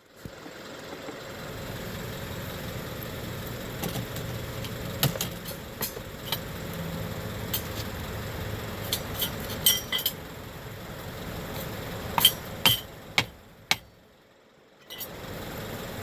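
Scattered light metallic clinks and taps of axle and hub parts and tools being handled, over a steady low background noise that drops out briefly near the end.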